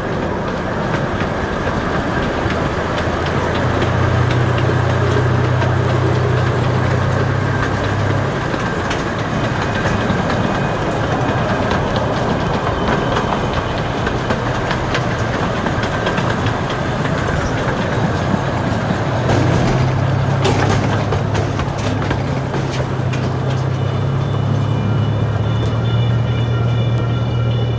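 Small zoo train running along its track: a steady low engine hum that swells and eases, with the rumble and rattle of the open passenger cars rolling on the rails and a few sharp wheel clicks. A thin high squeal joins in near the end.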